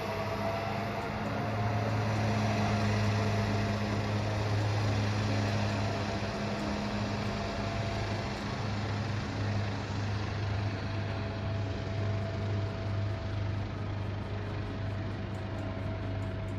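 Ship's engines running with a steady low hum and an even rumble, no change in pitch.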